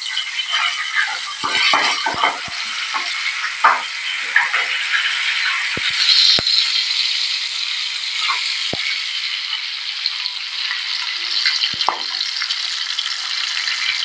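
Shrimp frying in hot oil: a steady sizzle with many sharp crackles and pops from the spitting oil.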